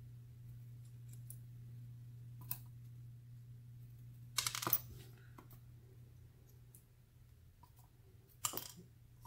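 Small metallic clicks of steel tweezers and brass key pins as pins are picked from a wooden pinning tray and set into a Euro cylinder lock's plug: a light tick about two and a half seconds in, a quick cluster of clicks near the middle, and another near the end, over a low steady hum.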